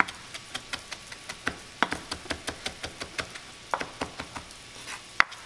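Chef's knife chopping fresh dill on a wooden cutting board: a run of quick, uneven knocks, about three or four a second, with a sharper knock near the end.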